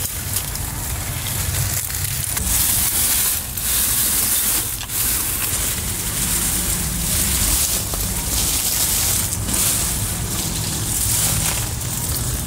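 Crackling and rustling of dry leaves, mulch and plant leaves as an RC rock-crawler truck pushes through garden foliage. The hiss swells and fades in several waves over a steady low rumble.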